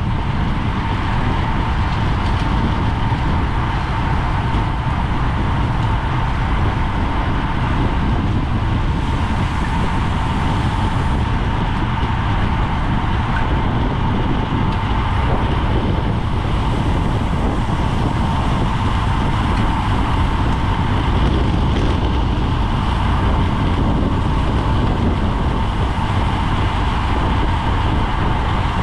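Wind noise on a GoPro microphone carried on a road bicycle at racing speed: a steady, loud rush of air, with a thin steady tone just under 1 kHz running through it.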